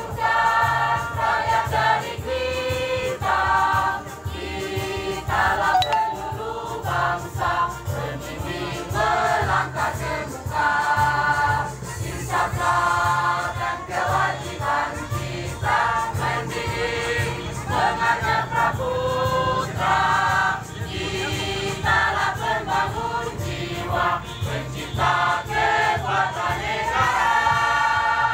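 A choir singing together in rehearsal, moving through a phrase of long held notes.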